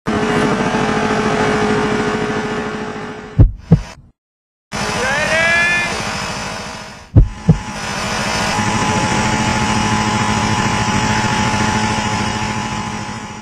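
John Deere riding lawn mower engine running steadily, broken twice by a pair of heavy thumps, with a brief drop-out about four seconds in and a short rising whine just after.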